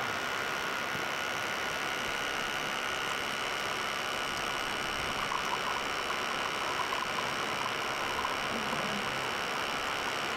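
Outin Nano battery-powered portable espresso machine running its pump, a steady high whine over a hiss, while espresso streams into the cup; faint dribbling patter from about five seconds in.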